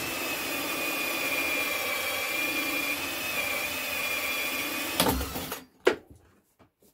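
Power drill running a 40 mm hole saw through PVC pipe: a steady, high-pitched whine that stops about five seconds in, followed by two sharp knocks.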